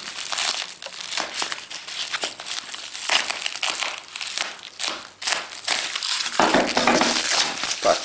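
Plastic bubble wrap crinkling and crackling as a small package is cut and pulled open by hand, a dense run of quick, irregular crackles.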